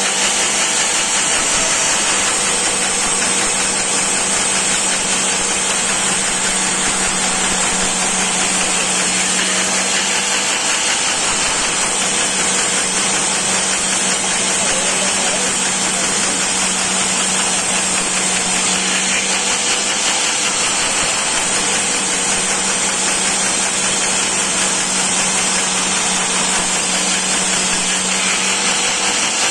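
Bandsaw running steadily while its blade rips through a thick wooden block being fed by hand, a continuous cutting noise over a steady hum. The hum drops out briefly twice.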